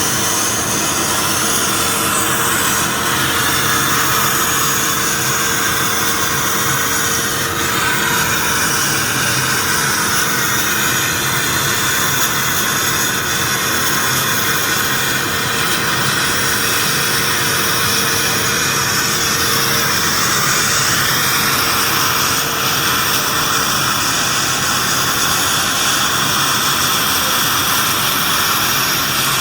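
Akwilon CNC automatic sandblasting machine running: a loud, steady hiss of compressed-air abrasive blasting, with a faint hum underneath. A faint steady tone in the mix stops about 24 seconds in.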